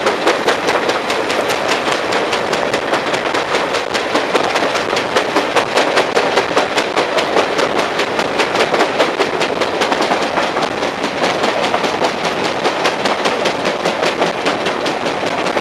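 Railway carriage running at speed with a flat spot on one of its wheels, which hammers the rail in a rapid, even beat once per wheel turn over the steady rush of wheels on track.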